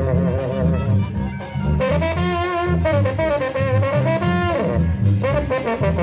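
Mexican banda playing live: a brass melody with wavering held notes over a steady bass and drum beat.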